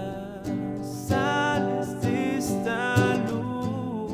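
A man singing a slow melody, holding notes with vibrato, over a nylon-string acoustic guitar strummed in chords about once a second.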